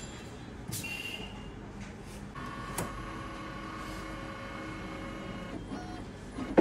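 Canon imageRUNNER iR2425 photocopier powering up after being switched on, clicking and whirring as its mechanisms start. A steady motor whine runs for about three seconds in the middle, and a sharp click near the end is the loudest sound.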